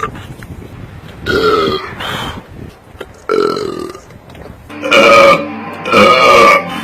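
A man belching loudly four times in a row, each burp about half a second long and coming roughly every second and a half.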